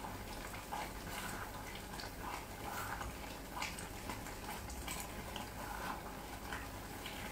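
Thick pasta and potato soup simmering in a copper saucepan, with soft scattered pops and the scrape of a wooden spoon stirring it.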